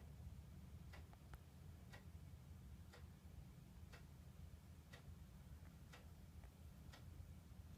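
Faint, regular ticking, one tick about every second, over a low steady hum.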